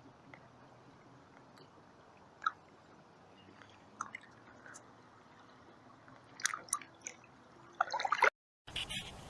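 Birds making a few short, scattered chirps and clicks over a low background, busier about eight seconds in, after which the sound cuts out for a moment.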